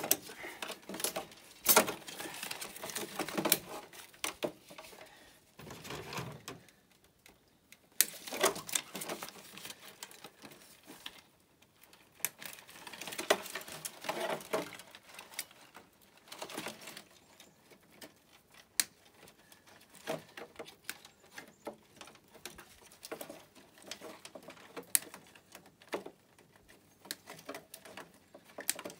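Hands prying and working a circuit board loose from a stripped CRT TV chassis: irregular clicks, snaps and rattles of plastic and metal parts with rustling of wires, in uneven bursts and short pauses.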